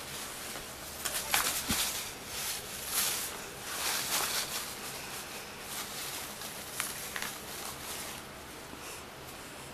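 Irregular rustling and scuffling as a cat paws, grabs and tugs at a pink fabric jellyfish toy with long streamers. The rustles are busiest in the first half and die away near the end.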